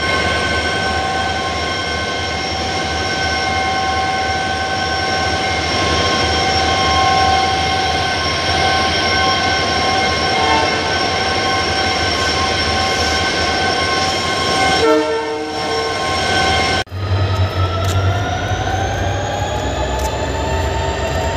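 EMD two-stroke diesel locomotive running at idle close by, a steady engine sound with a whine of fixed tones. After a sudden cut, another locomotive engine runs with its pitch rising slowly as it revs up.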